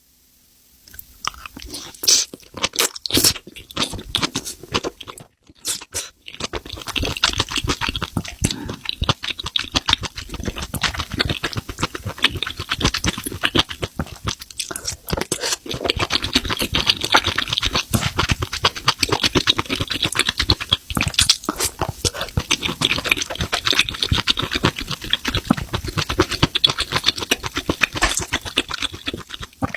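Close-miked chewing of spicy mushrooms: a quick, dense run of wet crunches and clicks of the mouth, with a few sharper bites near the start and a brief pause after about five seconds.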